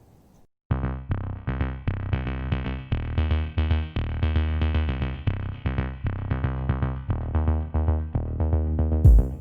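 Electronic intro music with synthesizer and a drum-machine beat, starting abruptly about a second in.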